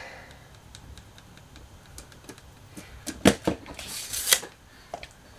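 Tape measure handled on a wooden tabletop: a few light ticks, then two sharp clicks a little past three seconds in, and a short rasp as the steel blade slides back into its case about a second later.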